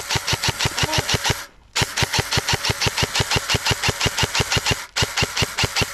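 Airsoft gun firing full-auto in long bursts, about a dozen evenly spaced shots a second, with brief breaks about a second and a half in and near five seconds.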